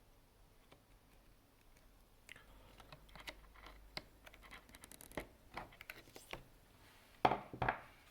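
Scrapes and small clicks of parts being handled and fitted back into an opened bean-to-cup coffee machine, with two louder knocks close together near the end.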